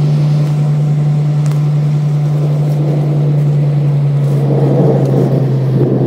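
Thunderstorm with strong wind and heavy rain: a loud, unbroken low rumble under a rushing noise that swells about four and a half seconds in.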